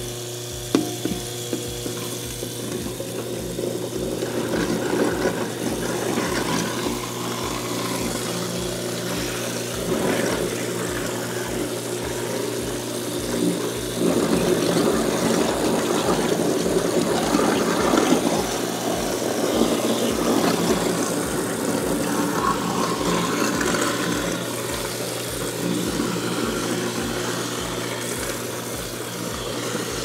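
InSinkErator Contractor 1000 (1 HP) garbage disposal running with the tap on, grinding pineapple and melon scraps. A steady motor hum sits under rough grinding and water noise, and the grinding gets louder about halfway through.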